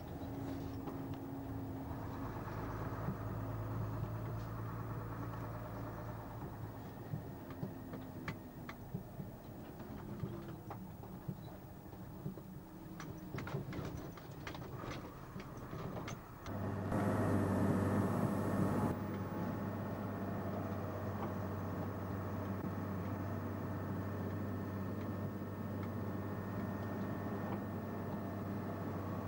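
Milk tanker lorry's diesel engine running, heard from inside the cab, with scattered clicks and rattles. About two-thirds of the way through, the engine grows louder and a loud hiss lasts about two seconds, then the engine carries on steadily.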